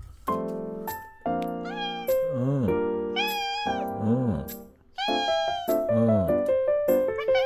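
Domestic cat meowing repeatedly, about one call a second, each call rising and falling in pitch, over background music of held notes.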